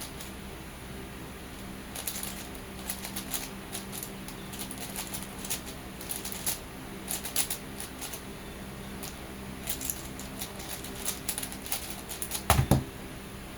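5x5 speed cube being turned fast during a solve: a quick, irregular patter of plastic clicks as the layers turn, with a louder knock near the end.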